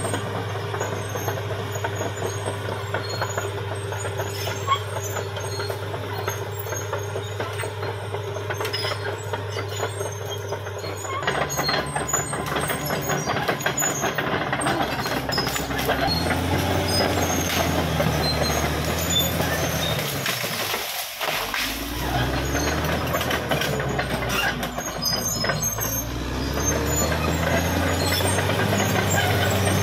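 Caterpillar D6R XL bulldozer at work: its diesel engine runs at a steady note for about ten seconds, then rises and falls in pitch as it takes and sheds load, with metallic clanking and squealing from the steel tracks.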